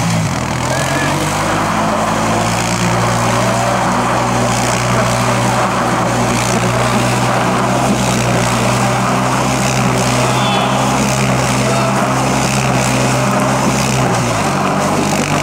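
Honda Rancher ATV's single-cylinder engine held at steady revs while the quad spins in a tight circle on snow and ice, under the load of three riders. The engine note changes about 14 seconds in.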